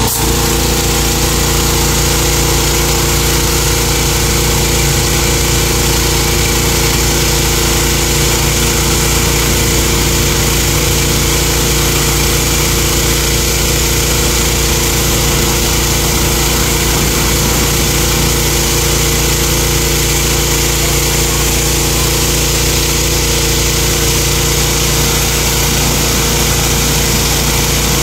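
Pressure washer's 459 cc SUA 460 engine running steadily, with a small change in its note right at the start.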